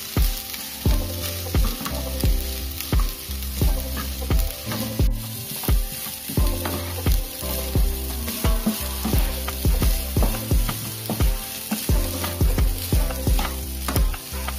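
Fried rice sizzling in a hot pan while it is stirred and tossed, with frequent knocks and scrapes of the spatula against the pan. Background music with steady bass notes runs underneath.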